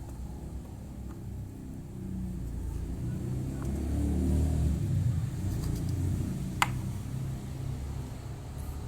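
A low rumble swells over a few seconds and then eases off, with one sharp click about two-thirds of the way through.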